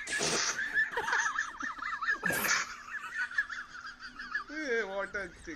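Squeaky, high-pitched fart noises wavering up and down in pitch, with a short hissing burst at the start and another about two and a half seconds in, and a lower, buzzy fart near the end.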